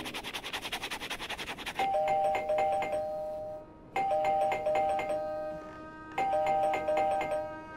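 Pen scribbling fast on paper, then a two-tone ding-dong doorbell rings three times, about two seconds apart.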